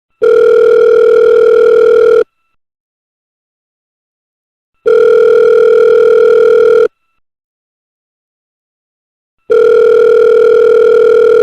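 Telephone ringing tone as heard by a caller on the line: a steady buzzy beep about two seconds long, sounding three times with silent gaps of a little over two seconds between.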